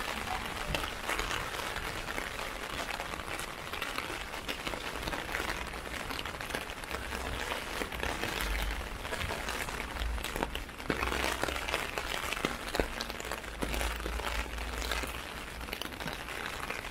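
Heavy rain falling on a clear plastic umbrella: many close, sharp drop hits over a steady hiss of rain.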